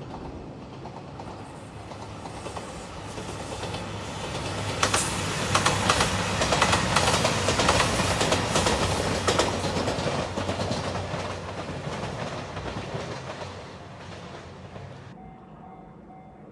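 JR Shikoku 2700 series diesel train passing at speed. Its engines hum low and its wheels clatter over the rail joints, rising to a peak a few seconds in and then fading away. Near the end an abrupt cut leaves a pulsing steady tone.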